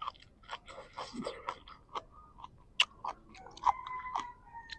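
Quiet eating sounds close to the microphone: scattered small clicks and smacks of a person chewing food, with one sharper click a little past halfway.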